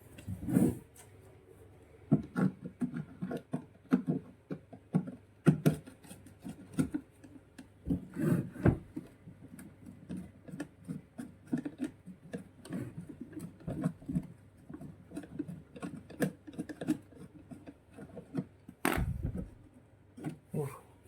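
Hand tools clicking, scraping and knocking irregularly against a twin-tub washing machine's housing while its rusted bolts are being unscrewed, with a few louder knocks in between.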